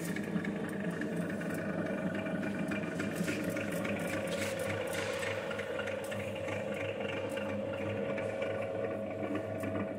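Planetary mixer running empty: a steady motor and gearbox hum with a held mid-pitched tone, and faint irregular ticking over it.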